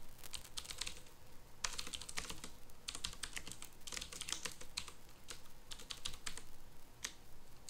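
Computer keyboard typing in short bursts of keystrokes with brief pauses between them.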